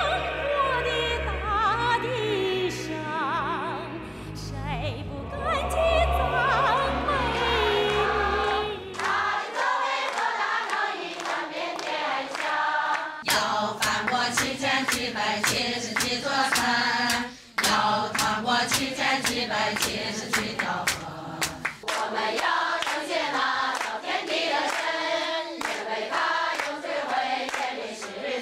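Chinese Christian hymns sung by groups of believers, in short pieces one after another. First a large crowd sings over a heavy low accompaniment that drops out about nine seconds in. Then a woman sings into a microphone with a small group, with many sharp clicks through the singing.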